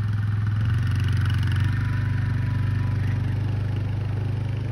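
ATV engine running steadily as the quad drives off down a gravel drive, a little fainter near the end.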